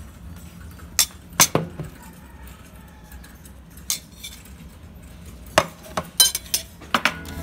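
Light clinks and knocks of a plate being set against a laptop stand and moved, in two short clusters: one about a second in and one near the end.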